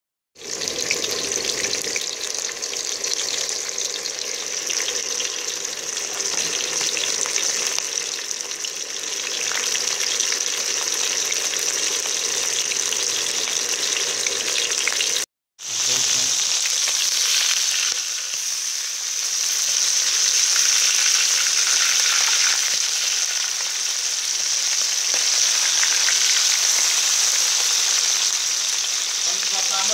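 Whole mackerel frying in hot oil in a wok: a steady sizzling hiss. It cuts out briefly about halfway through, then resumes.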